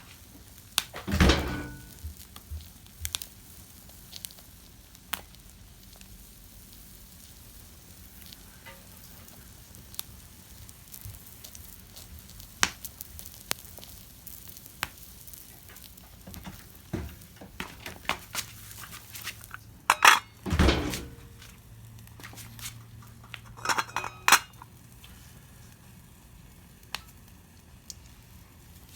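A pan sizzling quietly over a small wood fire, with scattered light clicks and a few louder clatters of utensils against the pan, the loudest about a second in and around twenty seconds in.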